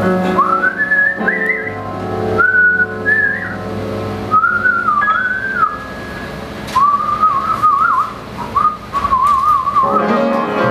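A woman whistling a melody into a microphone, over held chords from a swing band. Near the end her whistled phrases waver in a quick vibrato.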